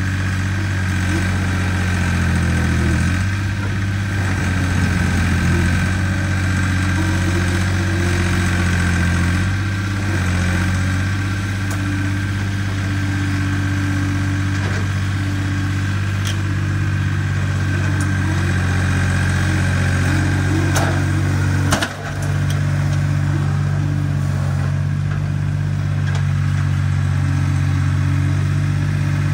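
Vehicle engine running steadily at idle, its pitch shifting a few times as the engine speed changes, with one sharp knock about three-quarters of the way through.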